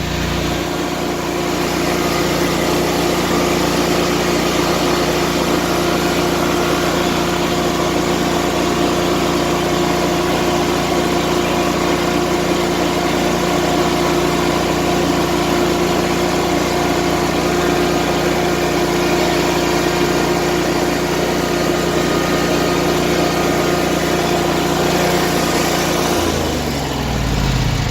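Riding lawn mower engine running steadily at low throttle, about an eighth to a quarter. Near the end the engine note drops as it is throttled back.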